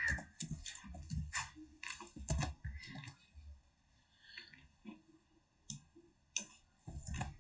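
Typing on a computer keyboard: a quick run of keystroke clicks over the first three seconds or so, then a few scattered clicks.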